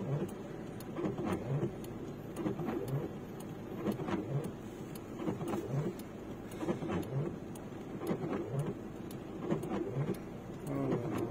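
Indistinct voices of onlookers talking in short bursts over steady street and vehicle noise.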